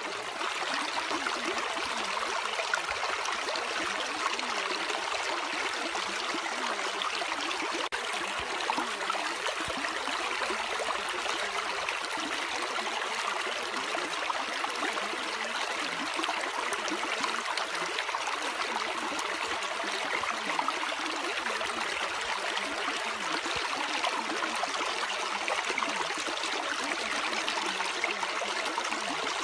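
Steady, even rushing noise of running water, with no music or speech.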